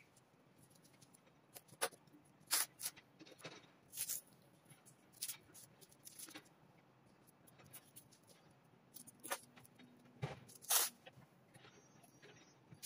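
Masking tape being handled along the edge of a canvas: a scatter of short, crisp crackles and rustles as the tape is peeled, pressed down and smoothed by hand, the loudest about two and a half and ten and a half seconds in.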